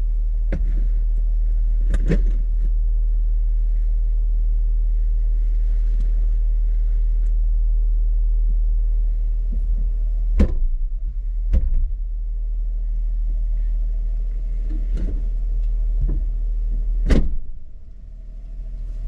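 Jeep engine idling with a steady low rumble, with scattered knocks and clunks over it; the rumble quietens after a final loud clunk near the end.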